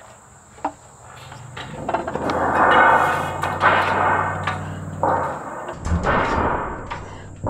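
A thin sheet-metal roofing panel being lifted and slid onto wooden rafters: the sheet flexes and rattles with a low rumble, scraping across the wood, and a few sharp knocks come as it is set down near the end.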